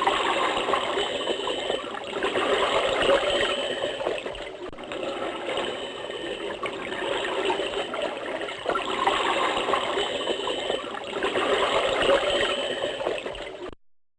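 Mugger crocodile sound effect: a rough, rushing, water-like noise without a clear pitch that swells and fades in waves every few seconds, then cuts off abruptly near the end.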